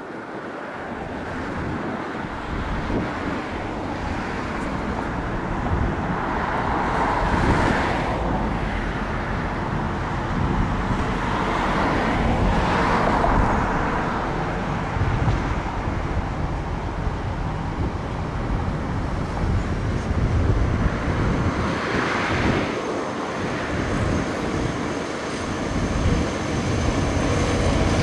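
ZSSK Cargo class 742 diesel-electric locomotive working under power as it pulls a freight train away from the station. Its engine drone comes from far off and grows steadily louder as it approaches, swelling and easing a few times.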